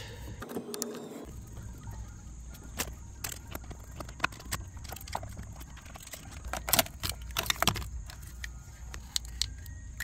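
Scattered light clicks and metal ticks as small Phillips screws are backed out of a steering wheel's cruise control unit with a hand screwdriver and the loose screws and plastic switch are handled.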